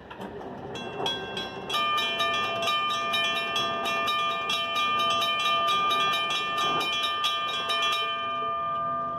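Mechanical railroad crossing bell ringing with rapid hammer strikes, several a second, growing louder about two seconds in and stopping near the end, the last strike's tone dying away. It rings on while the crossing gates rise after the train has cleared and falls silent as the gates come fully up.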